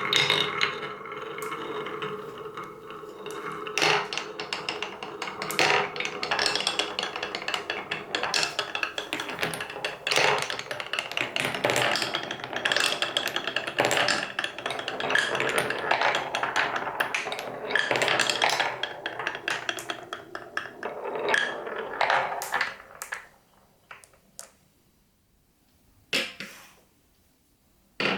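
Colourful balls rolling and clattering down a wooden marble run, a dense stream of clicks and wooden knocks as many balls run the course together. Near the end the run thins out to a few single knocks as the last balls finish.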